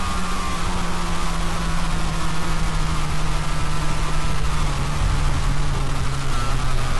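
A drawn-out cartoon 'AUGH!' scream, deliberately overdriven into a loud, harsh distortion ('ear rape'), held as one continuous blare whose low pitch slowly sinks.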